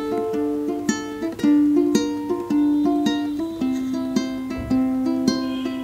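Ukulele fingerpicked: single notes plucked one after another across the top three strings in a repeating pattern, each note ringing on into the next as the chords change.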